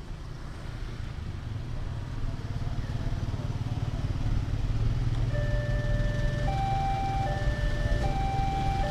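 Motorcycles and cars running past a railway level crossing, then about five seconds in the crossing's electronic warning alarm starts: two notes, a lower and a higher, alternating, each held about a second. The alarm signals that a train is approaching.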